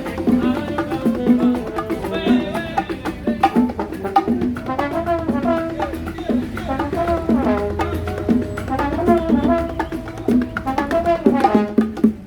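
Salsa music with brass horns carrying the melody over percussion, including a steady wood-block-like click of the clave.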